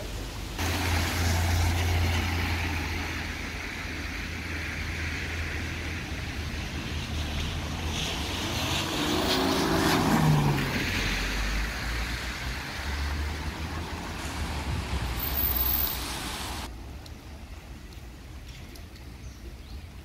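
Road traffic on a wet street: tyres hissing on wet asphalt over a low engine rumble. About halfway through a vehicle passes close, loudest at that point, its engine note falling as it goes by. The sound drops away abruptly near the end.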